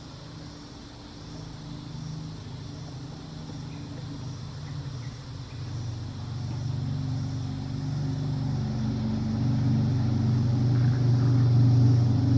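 A small engine running with a low, even hum, growing steadily louder as it draws near and loudest near the end.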